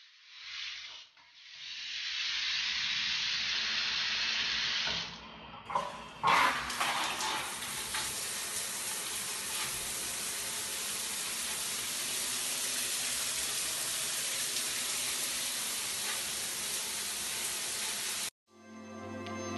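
Shower water running steadily: first a hand shower spraying, then, after a knock about six seconds in, a square overhead rain shower head pouring onto a tiled floor. The water cuts off suddenly near the end.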